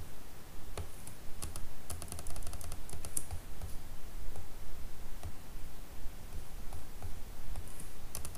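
Irregular clicking of a computer keyboard and mouse, with a quick run of taps about two to three seconds in and another just before the end.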